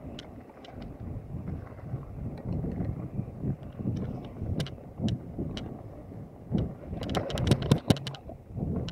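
Mountain bike rolling along a dirt trail: a steady low rumble of tyres and wind on the microphone, with scattered rattling clicks from the bike over bumps and a quick run of them about seven seconds in.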